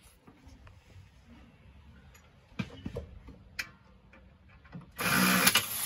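Hand tools working the spring off an alternator belt tensioner: a few faint metallic clicks, then a loud, harsh burst of metal-on-metal noise about five seconds in.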